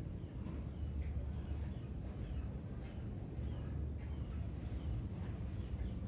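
A small songbird, a huýt cô, giving scattered short high chirps over a steady low rumble.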